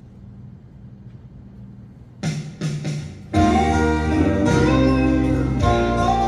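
A low hum, then a few guitar strums about two seconds in, and a live band's guitar-led intro starting loud about a second later.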